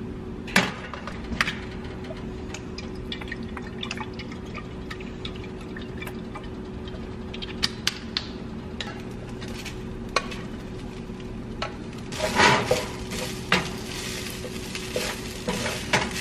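Cooking at the stove: scattered clinks and knocks of a metal saucepan, lid and utensils over a steady low hum, then from about twelve seconds in, cooked white rice sizzling in a hot oiled non-stick frying pan as it is stirred with a wooden spatula.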